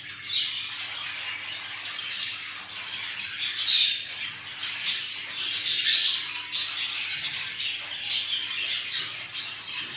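Budgerigars chirping and chattering with quick, sharp squawks, several a second, loudest from about three and a half to seven seconds in.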